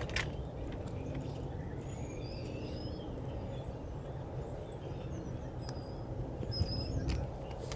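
Steady low rumble of a long freight train's cars rolling slowly away, with small birds chirping and whistling faintly over it.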